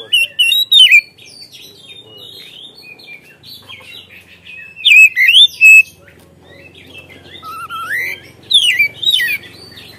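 Oriental magpie-robin (kacer) singing: loud, varied whistled phrases sliding up and down, with quick high trills, coming in bursts at the start, around halfway and near the end, and softer twittering in between. It is a full, continuous song packed with mimicked phrases (isian).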